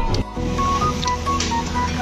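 Background music: a melody of short held notes over a steady low hum, with a brief break just after the start where the music changes.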